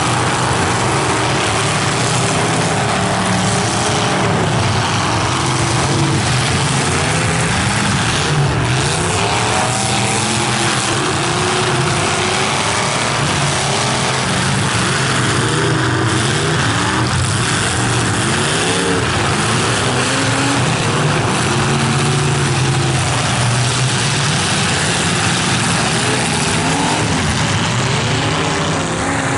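Several stock full-size demolition derby cars' engines running and revving together, their pitches rising and falling again and again over a loud, steady din.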